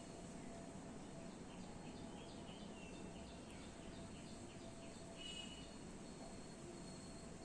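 Faint steady background noise, with a run of quick, high chirps from a small bird, about three a second, from about a second in until past the middle.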